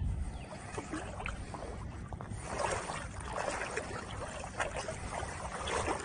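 River water sloshing and splashing around hip waders as someone wades through it, busier with splashes from about halfway through.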